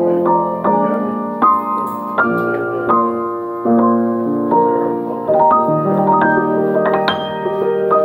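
Piano played by hand: chords and melody notes struck in an unhurried rhythm, each ringing and fading before the next.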